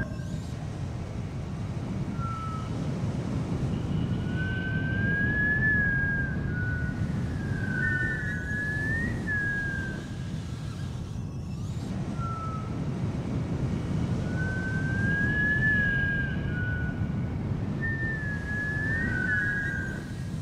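A high wavering whistle gliding up and down over a steady rushing noise, the same phrase coming twice about ten seconds apart.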